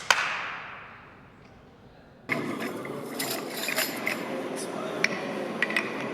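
A sharp knock that rings out with a long echoing tail in a large stone hall with a 20 m ceiling. About two seconds in, a dense clattering, rattling noise full of small clinks begins and cuts off suddenly at the end.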